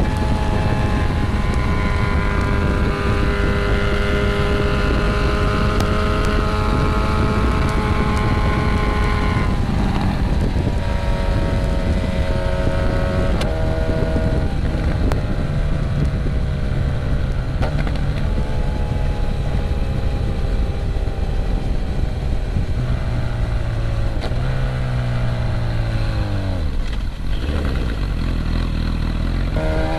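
Motorcycle engine running under the rider at a steady cruising speed, its note holding level. About ten seconds in the note drops and shifts. In the last few seconds it falls steadily as the bike slows, then rises sharply again at the very end.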